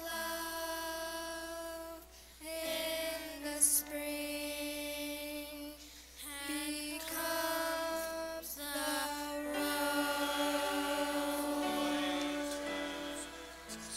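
Church choir singing in phrases of long held notes, with brief breaths between phrases about two, six and a half, and nine seconds in.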